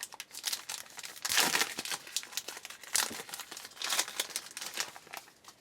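Trading-card pack wrapper being torn open and crinkled in irregular crackling handfuls. The louder crinkles come about a second and a half, three and four seconds in.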